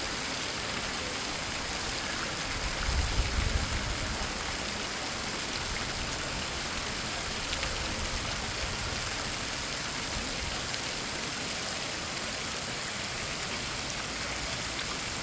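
Street fountain splashing steadily, with a brief low rumble swelling about three seconds in.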